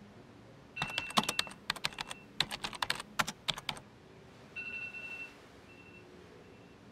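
A quick, irregular run of keyboard typing clicks for about three seconds, followed by a short electronic beep.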